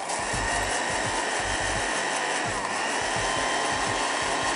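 Countertop blender with a glass jar running steadily, pureeing toasted sesame seeds with soy sauce, rice vinegar and water into a creamy dressing.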